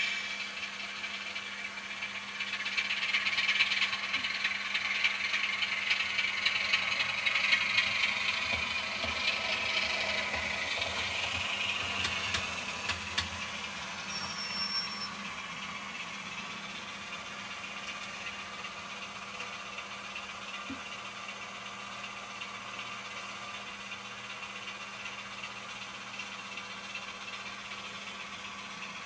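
Sound decoder in a model Class 26 diesel locomotive playing a Sulzer diesel engine through small speakers as the model pulls away. The engine sound swells over the first dozen seconds, then drops back to a steady, quieter running level as the model moves off.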